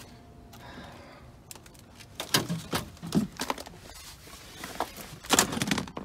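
Handling noise at a wrecked Saab 9-3: a car door being opened and broken plastic interior trim clicking and knocking, with rustling in between and the loudest knocks near the end.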